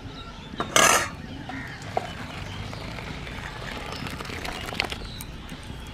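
Boiled urad dal and its liquid poured from a pot into a steel bowl: a short splash about a second in, then soft wet sliding.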